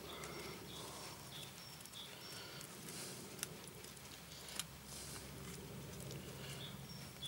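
Quiet outdoor ambience with faint, short bird chirps repeating in the background, and two sharp clicks a little over a second apart near the middle.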